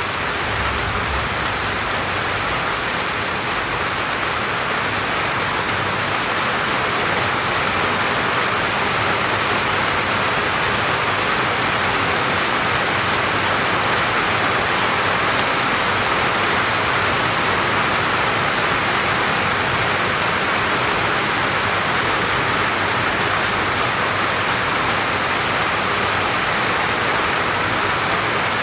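Steady rain falling on leaves, heard from under a roof: an even, unbroken hiss that grows a little louder about six seconds in.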